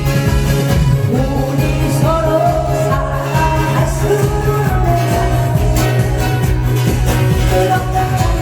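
Loud pumba show music: a voice singing a melody over a backing with a steady, heavy beat.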